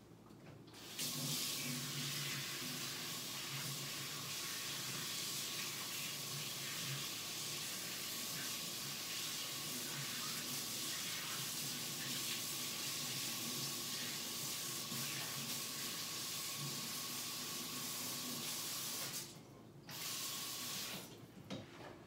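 Handheld torch blowing with a steady hiss as its flame is played over a wet acrylic pour, heating the paint to bring up cells. It breaks off for about a second near the end, runs again briefly, then stops.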